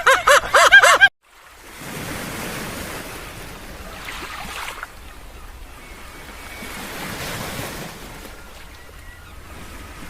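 A few loud goose honks cut off about a second in. Then ocean surf washes in, swelling and easing in slow waves, with some wind.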